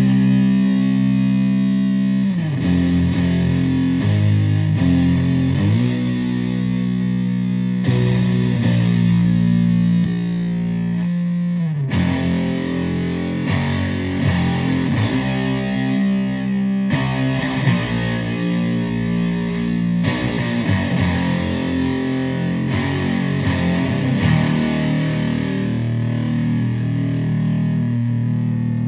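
Electric guitar tuned to drop C played through a Russian Big Muff fuzz pedal with blend and octave, into a Fender Twin Reverb–style amp: heavy sustained fuzz chords and riffs, with pitch slides between some of the chord changes.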